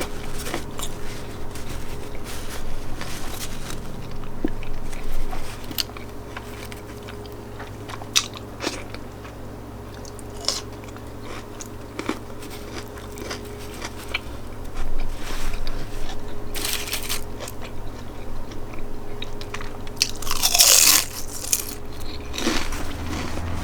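Close-up biting and chewing of an Italian sub sandwich: crisp crunching bites, with the bread and lettuce crackling between chews. Two louder, crisper crunches come about two-thirds of the way through and near the end.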